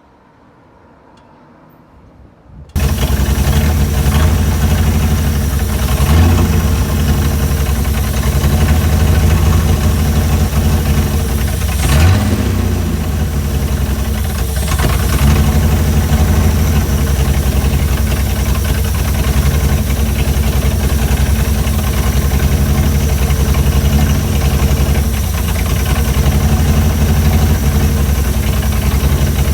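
Chrysler Hemi 265 straight-six engine of a CM Valiant running at idle, coming in abruptly about three seconds in and running steadily, with a brief rise in revs about halfway through.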